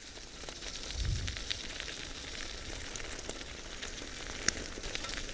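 Bicycle tyres rolling over a wet, muddy forest track: a steady crackling hiss with many small clicks of grit, and a low thump about a second in.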